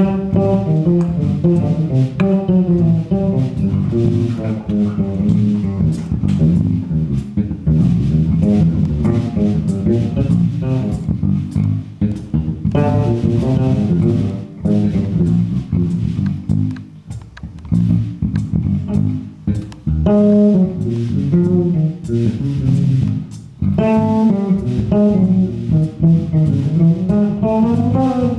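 Electric bass guitar playing improvised lines of single notes that run up and down the neck, working through Locrian, diminished and major-seventh patterns as a practice exercise. The playing breaks off briefly twice, past the middle and again about five seconds later.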